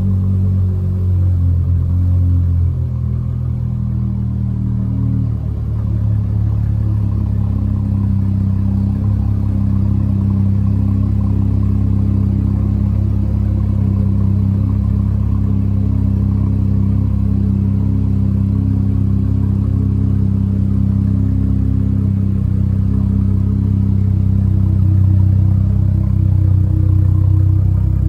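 Dodge Charger SXT's 3.6-litre V6 idling through a Jones turbine muffler exhaust after a warm start, a deep steady rumble from the tailpipes, a little fuller for the first couple of seconds before settling.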